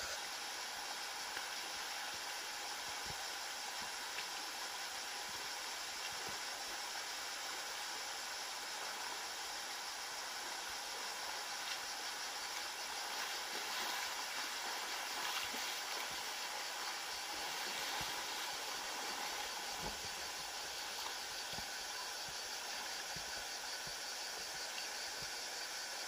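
Faint, steady rushing of a shallow river running over stony riffles.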